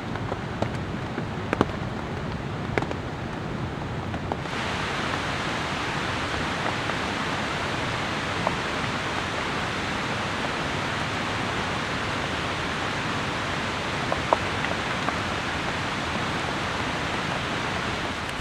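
Steady rain falling, with scattered sharper drop ticks. The hiss becomes brighter and fuller about four seconds in.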